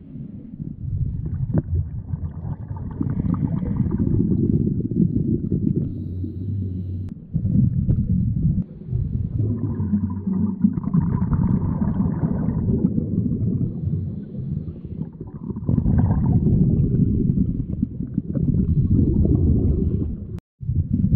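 Scuba diver's exhaled bubbles from the regulator, heard underwater as a low gurgling rumble. It comes in three long stretches of several seconds each, with brief pauses between breaths.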